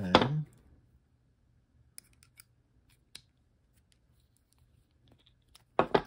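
Small metal clicks and taps from a folding multitool and its metal comb insert being handled, scattered and light, with a few sharper clicks just before the end.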